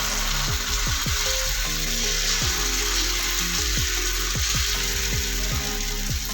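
Thin rice-flour batter sizzling steadily on a hot pan as a patishapta crepe cooks, with music and a low hum underneath.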